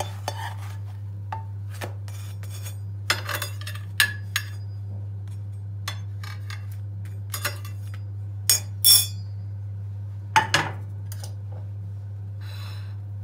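Metal spatula and non-stick pan knocking and clinking against a ceramic plate as a crepe is lifted out of the pan and set on the plate: scattered light clicks, with the loudest knocks about two-thirds of the way through. A steady low hum runs underneath.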